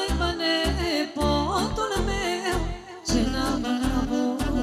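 Live Romanian lăutărească band music: an ornamented melody line, possibly sung, over a steady bass-and-chord beat of about two beats a second.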